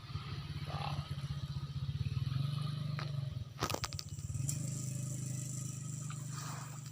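A small engine running with a rapid, even chug, fading briefly about halfway through before picking up again, with a few sharp clicks in the gap.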